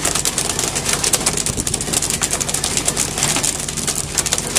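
Small fishing boat's engine running steadily under a constant hiss with crackling.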